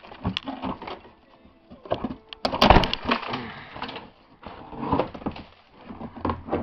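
Plastic under-engine splash shield being worked loose and pulled down, with irregular knocks, scraping and rustling as dirt and old debris from behind it shakes out; the loudest clatter comes about two and a half seconds in.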